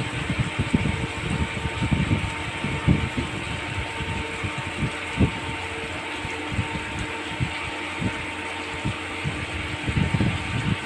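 A kitchen knife slicing through a firm vegetable and knocking on a hard countertop: short, dull, irregular chops, thicker at the start and near the end and sparser in the middle, over a steady background hum.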